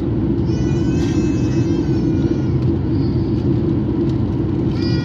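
Steady, loud cabin rumble of a Boeing 737 MAX 8 climbing after takeoff, from its CFM LEAP-1B engines and the airflow over the fuselage, heard from a seat over the wing. A baby cries faintly over it a few times.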